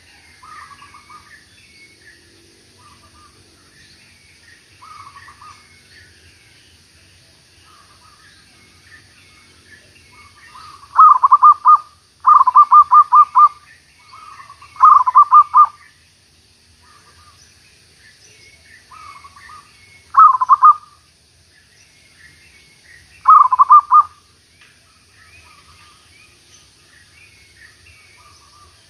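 Zebra dove cooing in short phrases of rapid staccato notes. The loudest phrases come in a cluster of five through the middle, with softer phrases before and after. Small birds chirp faintly in the background.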